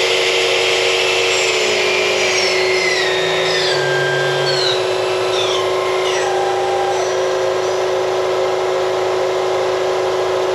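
Doosan HP 5100-II horizontal machining center running, a steady loud hiss over a constant hum. Between about two and seven seconds in, several motor whines step down in pitch.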